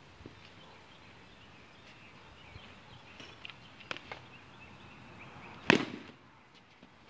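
A plastic wiffle ball bat hits a wiffle ball with one loud, sharp crack near the end, a couple of seconds after a few faint clicks.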